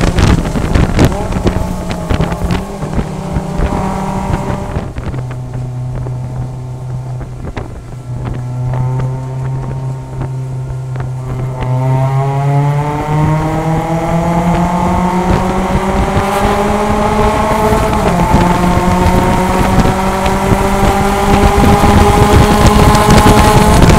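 Mazda MX-5 Cup race car's four-cylinder engine heard from inside the cockpit. It runs high, settles to a low steady note for several seconds, then climbs steadily in pitch as the car accelerates hard. Wind noise rushes underneath.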